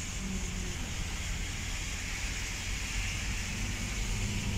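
A car driving, heard from inside the cabin: a steady low rumble of engine and road noise that grows slightly louder near the end.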